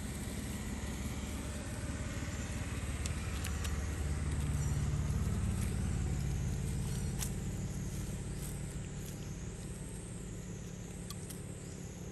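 A motor vehicle's engine running nearby, a low hum that grows louder about four seconds in and then fades away again, with a few light clicks over it.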